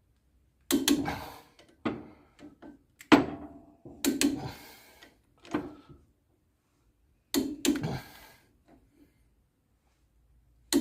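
Hand tools and metal parts knocking and clattering as they are handled and set down: about six separate knocks with pauses between, the loudest about three seconds in.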